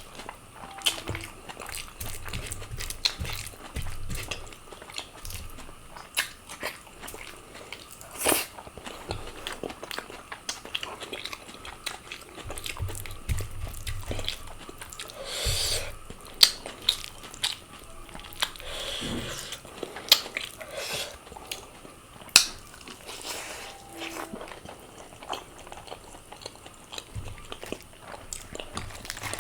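A person eating close to the microphone: chewing, biting and crunching food, with irregular sharp clicks and a few louder crunches.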